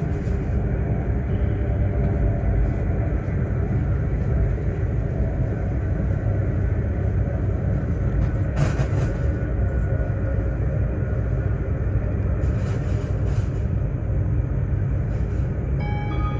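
Cabin noise of a CRH Hexie high-speed train running at speed: a steady low rumble from the wheels and track. A brief hiss swells about nine seconds in and again around twelve to thirteen seconds.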